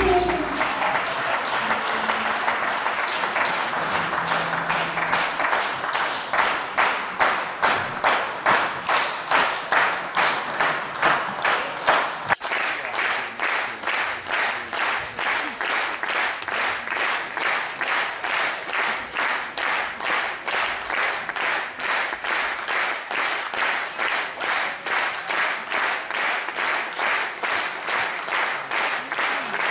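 Theatre audience applauding after a last orchestral note dies away; the clapping falls into a steady rhythmic beat in unison. About twelve seconds in it cuts abruptly to another burst of rhythmic applause in unison, with faster claps.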